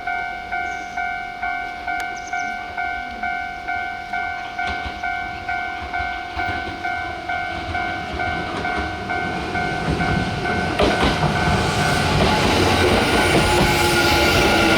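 Japanese railway level-crossing warning bell ringing in an even electronic ding about twice a second. From about ten seconds in, a Kintetsu Nara Line train approaches and runs over the crossing, and its growing rumble and rail noise drown out the bell.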